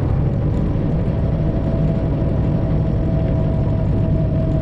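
Detroit Diesel 12.7-litre engine of a Freightliner Classic XL semi truck running steadily on the road, heard from inside the cab as an even, low drone.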